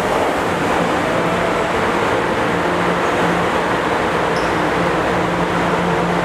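Steady rumble and hum of a Chicago Transit Authority Morrison-Knudsen 3200-series subway train at the platform, with no rise or fall in pitch.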